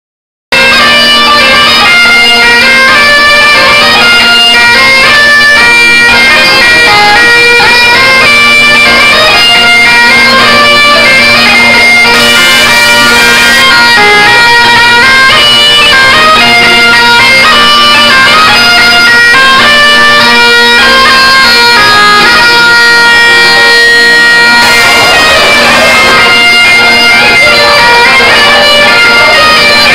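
Folk dance tune played on bagpipes: a melody over a steady drone, starting about half a second in.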